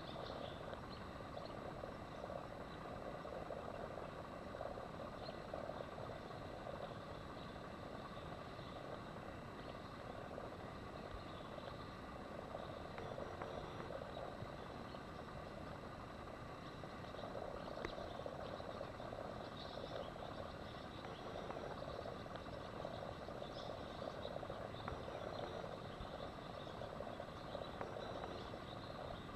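Faint, steady outdoor background noise: an even rush with a wavering mid-pitched hum that swells and fades every few seconds.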